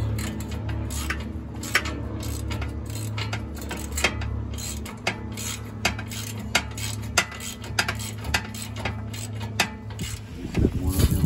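Wrench clinking and tapping against a bolt and the steel frame of a utility vehicle, in irregular sharp metallic clicks, as a bolt is worked loose. A steady low hum runs underneath and fades out about halfway through, and a short louder sound with wavering pitch comes near the end.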